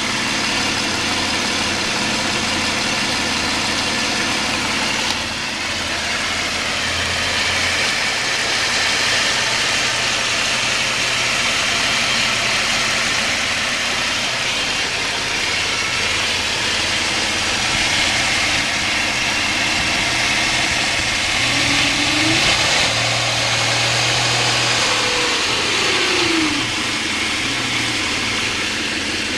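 Mitsubishi 6G72 3.0 litre V6 petrol engine running warm at a steady idle. In the second half the revs rise and fall a few times.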